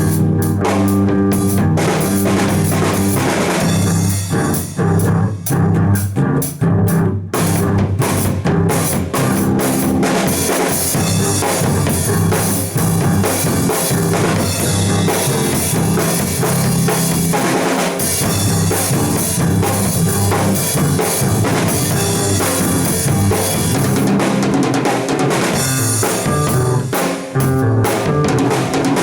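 Music with a drum kit keeping a steady beat over changing bass notes.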